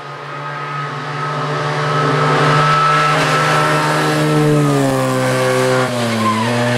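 Hill-climb race car engine at high revs, growing louder over the first two seconds and holding a steady high note, then dropping in pitch from about four and a half seconds in.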